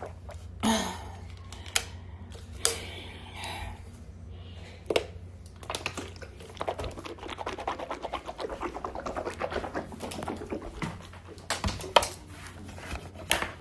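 A person sipping water, with scattered clicks and handling noises and a rapid crackling patter in the middle few seconds, over a low steady hum.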